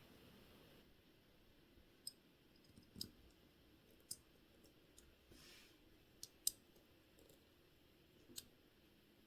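Faint, irregular small clicks and taps, about seven of them, with a brief soft rustle in the middle: small tools and watch parts being handled at a watchmaker's bench.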